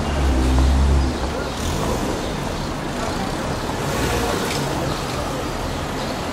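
Street traffic: car engines running close by, with a low engine hum loudest in the first second, over steady road noise.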